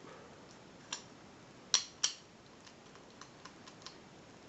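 Stainless steel disc padlock being locked back up: a click, then two louder metallic clicks close together, then a run of faint ticks as the mechanism is worked.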